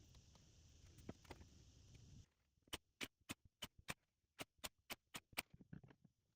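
Faint steady hum with a few soft clicks, then after an abrupt change about two seconds in, a quick run of about a dozen light, sharp clicks at roughly four a second, trailing off into a few fainter ticks.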